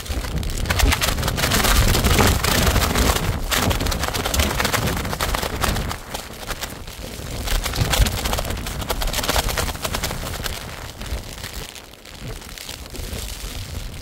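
Strong windstorm gusts buffeting the microphone: a loud, rushing blast that rises and falls, heaviest in the first half and easing about two-thirds of the way through.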